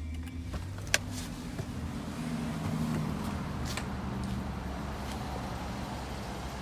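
2012 Chevrolet Avalanche's engine running with a steady low hum, with a single sharp click about a second in. The engine note rises slightly around three seconds, then holds steady.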